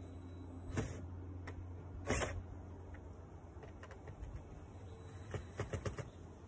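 DeWalt cordless impact driver given two short bursts of the trigger, about a second in and again just after two seconds, driving a screw home into a camera mount on vinyl siding. A quick run of about five clicks follows near the end.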